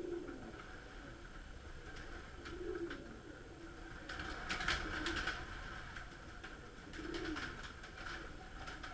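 Domestic pigeons cooing, with low coos every couple of seconds. Wings clatter as birds take off and fly about four seconds in and again near the end.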